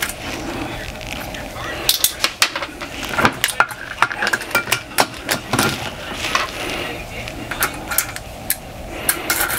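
Irregular sharp metallic clicks and clinks from a valve spring compressor being fitted and worked on a Yamaha YZF-R1 cylinder head, compressing the valve springs to free the retainers and cotters.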